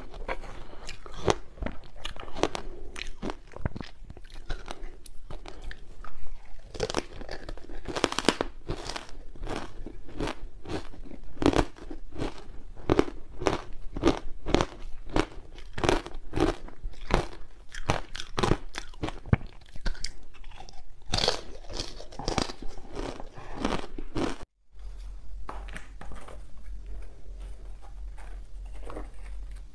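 Close-miked crunching of matcha-coated ice being bitten and chewed, a fast run of sharp crunches about three a second. Near the end it breaks off abruptly, and softer, sparser crunches follow.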